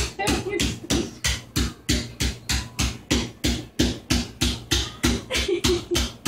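Fast, steady rhythmic beat: sharp hits about four a second, with short pitched vocal-like sounds between them.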